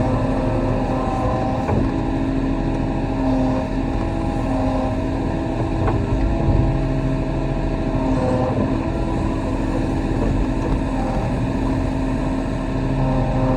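Kobelco SK35 excavator's diesel engine running steadily at working speed.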